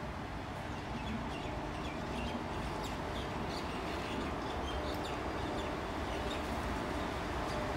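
Birds chirping in short, scattered calls over a steady low rumble.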